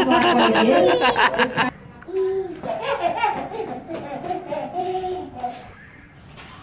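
People laughing in quick pulses, cut off abruptly under two seconds in, followed by quieter voices.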